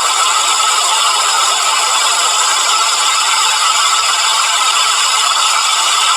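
The 4ormulator V31 sound effect: a loud, steady hissing noise with several fixed tones ringing through it, high-pitched and unchanging throughout.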